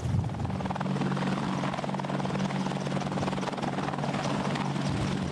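AH-64 Apache attack helicopter at takeoff and low hover: its twin turboshaft engines and rotor running, a fast, even rotor beat over a steady low hum.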